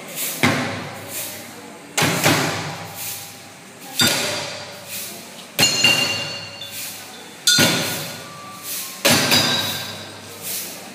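Improvised percussion on household containers: a stick striking a plastic container, with a plastic water jug, in a slow beat of sharp hits about every one and a half to two seconds, lighter taps between, some with a ringing clink.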